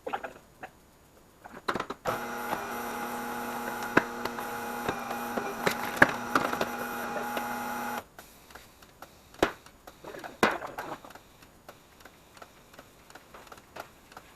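Tire changer's turntable motor running with a steady whir for about six seconds while a tire is mounted onto a wheel, starting about two seconds in and cutting off sharply. Scattered clicks and knocks come before and after it.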